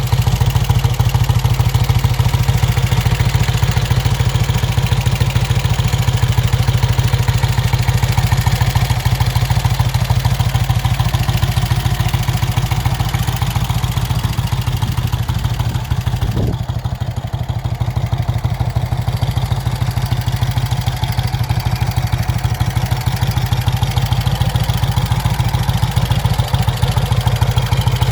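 1951 Vincent Black Shadow's 998 cc V-twin running steadily at low revs on its freshly rebuilt top end, with an even pulsing beat. It eases off briefly about two-thirds of the way through, then settles back.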